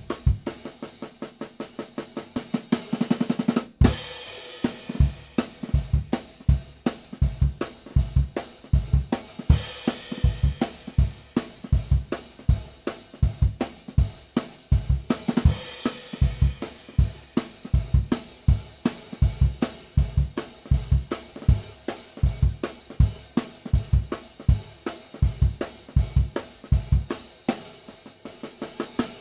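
Background music with a steady drum-kit beat, kick drum at about two hits a second with snare and cymbals, broken by a brief pause about four seconds in.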